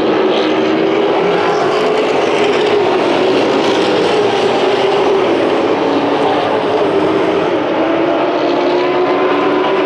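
A pack of short-track race trucks running around an asphalt oval, many engines blending into one loud, steady sound whose several pitches slide slowly up and down.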